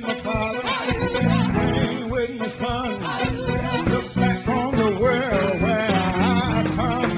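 Live gospel music from a church choir and band, with a lead singer's voice bending and wavering through held notes over the steady accompaniment.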